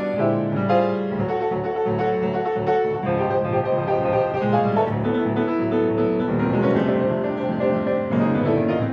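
Solo piano music with notes struck in quick succession.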